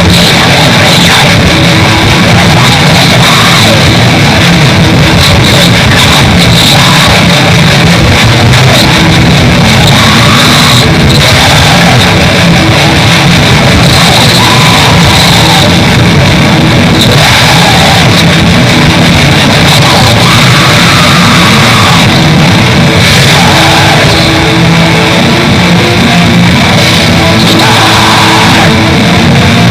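Raw black metal: distorted electric guitars, bass and drums in a dense, unbroken wall of sound.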